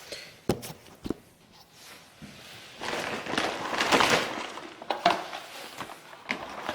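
Handling noise as a wooden drawer divider is put down: a few sharp knocks, a stretch of rustling in the middle, then more knocks.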